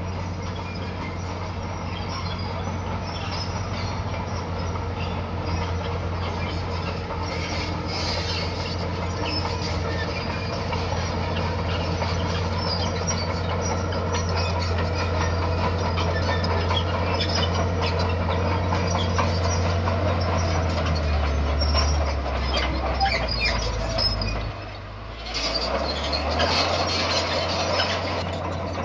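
Komatsu crawler bulldozer pushing a pile of stone and soil: its diesel engine runs steadily under load while the steel tracks clatter and squeal. The engine note drops about two-thirds of the way through, with a brief lull shortly after.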